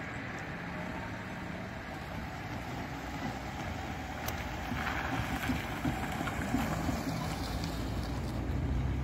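Cars driving over a railway level crossing, engine and tyre noise growing louder as one passes close near the end, with wind buffeting the microphone.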